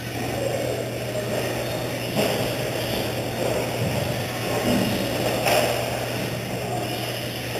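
Electric off-road RC stadium trucks racing on an indoor track: motors whining, with the pitch wavering as the drivers work the throttle, over tyre and track noise. Two sharp knocks, about two seconds and five and a half seconds in.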